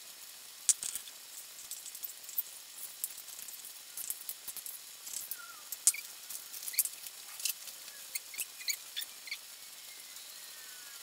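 Plastic zip-top bag crackling as it is filled with mousse, handled and squeezed for piping: scattered sharp clicks with a few short high squeaks.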